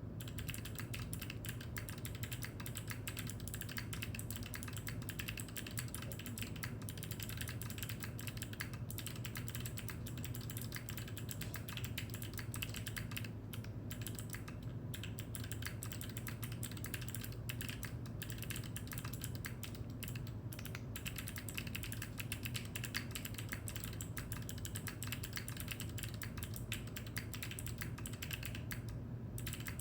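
Continuous fast typing on a Geon Frog Mini mechanical keyboard with Gateron Melodic Linear switches and DCS-profile Blue Moon keycaps, with brief pauses now and then.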